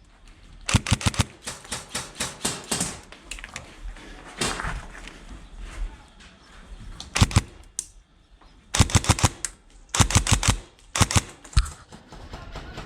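Airsoft electric rifles firing short bursts of rapid shots, about seven bursts with gaps between them.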